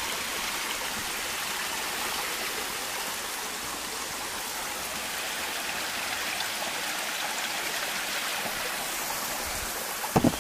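Small woodland waterfall splashing with a steady, even rush of water, with a few short camera-handling knocks near the end.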